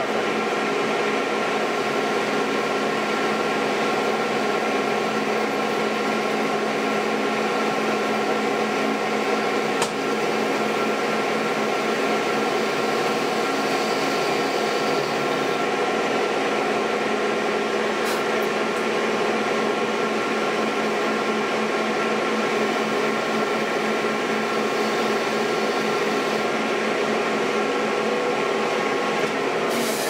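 Metal lathe running steadily while rough-turning a steel bar, its spinning chuck and drive giving a constant whine of motor and gears. Two brief clicks come about a third and two-thirds of the way through.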